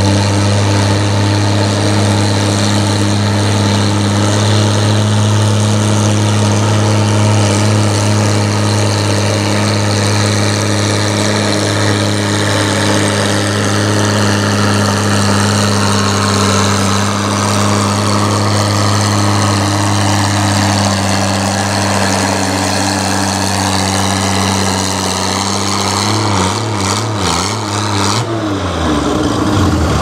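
Oliver farm tractor's engine running hard at steady high revs as it pulls a weight-transfer sled. Near the end the engine note falls away as the revs drop.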